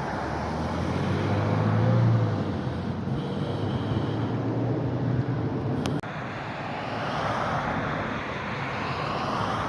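Road traffic: vehicles passing with a steady rushing noise and a low engine hum that swells about two seconds in.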